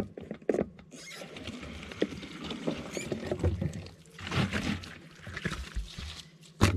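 Water running from a pipe and splashing, with scratchy knocks from handling, and a sharp knock near the end.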